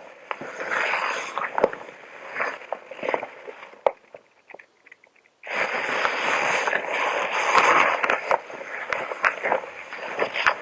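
Close-up rustling and crinkling of a protective hazmat suit, with sharp clicks scattered through it. It drops out for about a second and a half near the middle.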